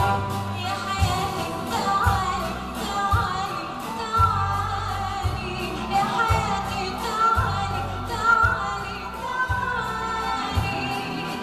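Soprano singing a melodic line with a live ensemble of violins and plucked strings, over a low drum beat of about one stroke a second.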